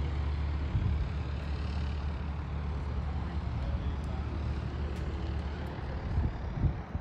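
A steady low engine drone with a constant hum underneath.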